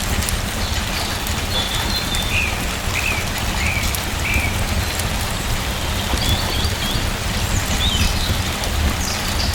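Steady rain falling, with a bird chirping over it: a run of four short chirps a couple of seconds in and a few more near the end.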